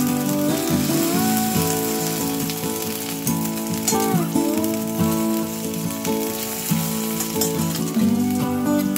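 Potato chunks frying in hot oil in a stainless steel pan, sizzling steadily, with a few clicks of metal tongs as the pieces are turned.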